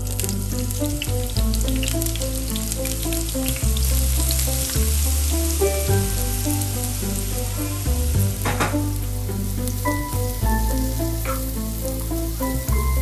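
Food sizzling as it fries in hot oil in a pan, starting suddenly and easing off after about nine seconds, over background music with a steady bass line.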